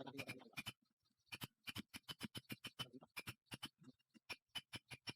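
A quick, irregular run of sharp, light clicks and taps, several a second, with a short pause about a second in and another near four seconds.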